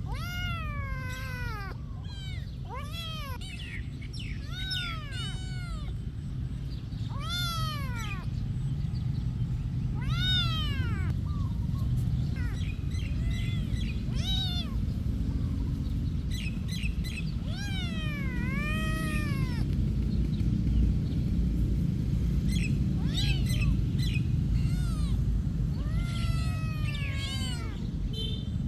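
A cat meowing over and over: a long string of separate high, arching meows, each rising then falling, some drawn out, over a steady low background rumble.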